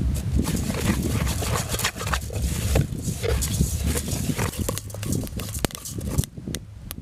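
Freshly harvested, unhusked rice being dry-toasted in an aluminium pot and stirred by hand and with a stick: a dry scraping rustle of grains against the metal, with many scattered sharp clicks.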